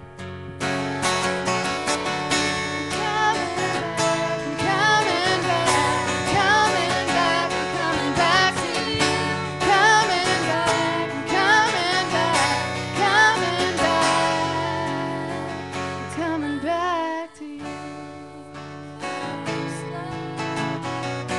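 Acoustic guitar strummed live, with a woman singing over it in long, wavering held notes. The music drops out for a moment about seventeen seconds in, then the guitar carries on more quietly without the voice.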